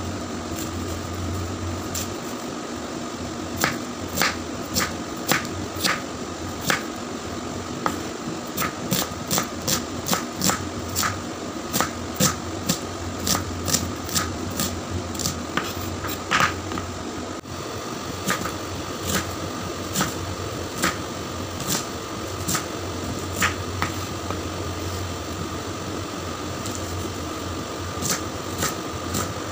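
Chef's knife chopping red onions on a wooden cutting board: sharp taps of the blade striking the board, irregular and often in quick runs of several a second. A steady mechanical hum runs underneath.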